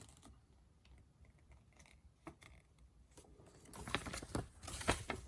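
Packaging of the microphone kit being handled: a few light clicks at first, then a busier run of clicks and rustling in the last second and a half.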